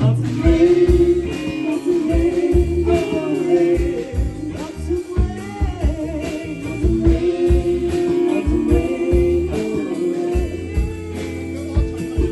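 Live band playing a slow song: sung vocals over guitar, bass guitar and drum kit.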